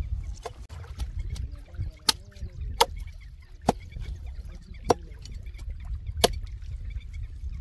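Knife chopping through fish on a wooden block: a run of sharp chops, about one a second, over a low rumble.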